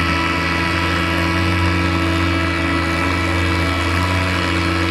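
Oliver tractor's engine running under heavy load at a steady, constant speed while pulling the weight-transfer sled, with a slight waver in pitch near the end.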